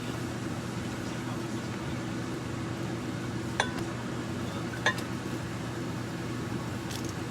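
Two light clinks of glass or dishware, the first about halfway through and the second a second or so later, each ringing briefly over a steady low hum.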